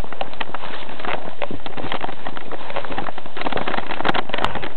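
Crackling and rustling of leaves, ferns and branches brushing against the body as someone pushes on foot through thick jungle undergrowth, a dense, irregular run of small cracks.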